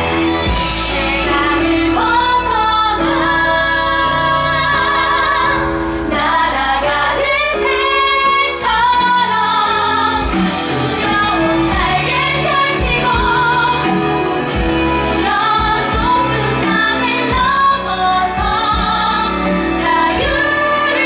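Several women singing a musical-theatre number together on stage, their held notes wavering with vibrato.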